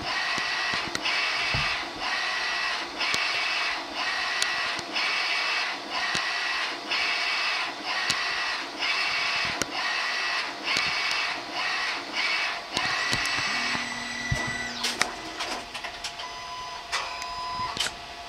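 Garment inkjet printer printing onto a T-shirt: the print-head carriage sweeps across with a whine about once a second, with a short gap between passes. About fourteen seconds in the passes stop, and other motor whirs and clicks follow as the print finishes.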